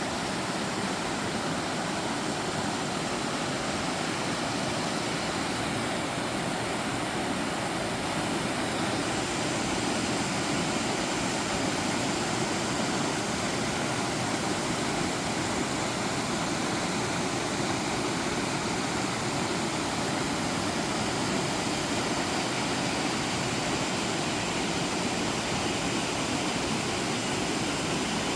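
Steady rush of water from a mountain valley stream.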